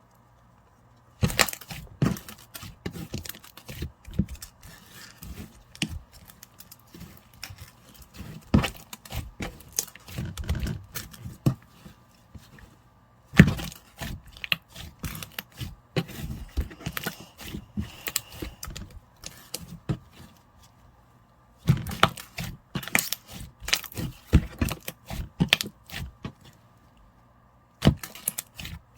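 White slime being squished and stretched by hand, making runs of sticky crackles and pops with a few short pauses.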